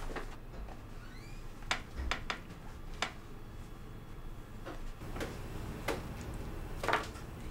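Scattered light clicks and taps, about seven over several seconds, against a faint steady room hum.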